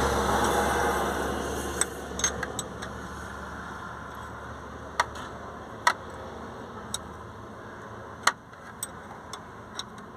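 Wrench working a 19 mm bolt tight in a cramped spot, giving sharp metallic clicks and taps at irregular intervals, roughly one a second. A low hum fades away over the first few seconds.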